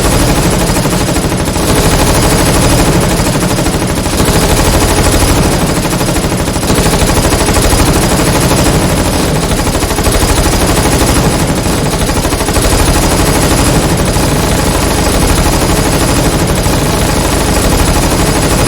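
Dense, unbroken automatic submachine-gun fire, several guns firing rapid bursts that overlap without a pause.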